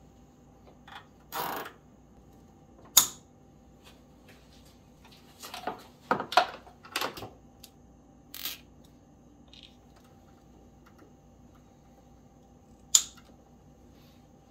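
Scattered clicks and short rattles of hands handling a battery maintainer's plastic leads and cords, with two sharp clicks, about three seconds in and near the end.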